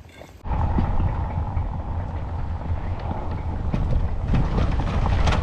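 Surface ice on a river's edge cracking and chunks of ice knocking and clattering in irregular sharp knocks. Wind rumbles on the microphone underneath and starts abruptly about half a second in.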